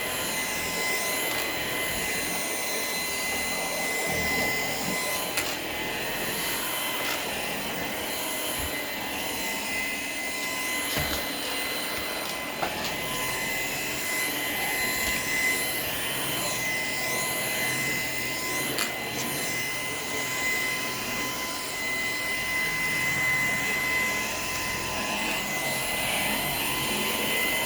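Shark PowerDetect cordless vacuum running steadily: a high motor whine over rushing air. A few light clicks sound as it is worked over the floor.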